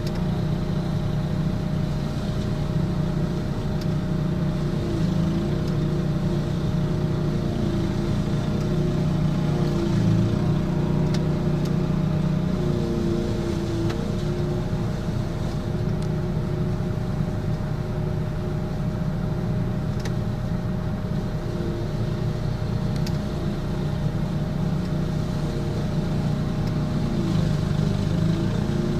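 Single-cylinder Honda GXV160 engine of a remote-controlled ride-on-style mower running steadily at working speed, its pitch wavering slightly a few times as it cuts.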